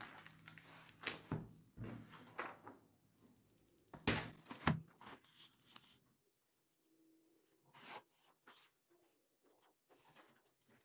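Paper and card being handled on a cutting mat: rustles and light knocks as journal pages are moved and a sheet of card stock is laid on a sliding paper trimmer. About eight seconds in there is a short scrape as the trimmer cuts the card.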